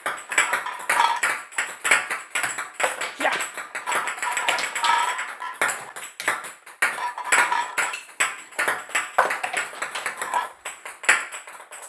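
Small plastic balls from a 4 Gewinnt Action game bouncing off a tabletop and hitting the game's plastic grid: a rapid, irregular run of clicks and taps, some with a brief ring.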